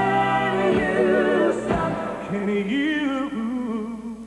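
Male singer's wordless ad-lib over a band playing an R&B ballad: a long held note with vibrato, then a second phrase on a lower wavering note starting about two seconds in, which trails off near the end.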